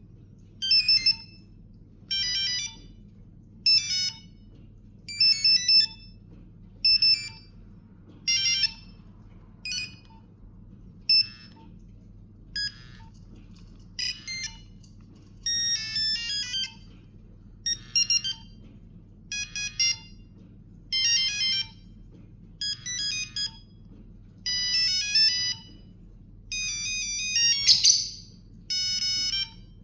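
Nokia 8810 mobile phone playing short snatches of its monophonic beeping ringtones one after another, a different tune starting about every second and a half as the ringtone list is previewed. A brief crackle comes near the end.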